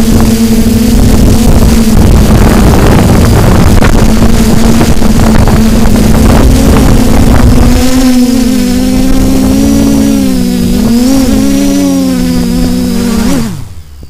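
Quadcopter's brushless motors and propellers humming steadily, heard through the onboard camera's microphone with strong wind buffeting it. From about halfway the wind noise eases and the motor tones waver up and down as the drone comes down low. Near the end the pitch drops sharply and the motors spool down as it lands.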